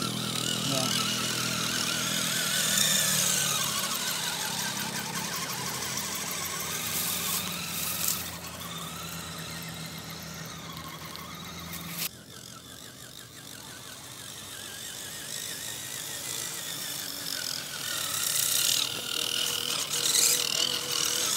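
Electric motors and gearboxes of radio-controlled scale crawler trucks whining, the pitch wavering up and down with the throttle. A steady low hum under it cuts off suddenly about halfway through.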